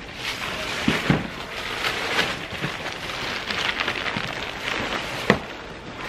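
Large clear plastic mail sack crinkling and rustling as it is handled and loaded with cardboard shipping boxes, with a few short knocks about a second in and again near the end.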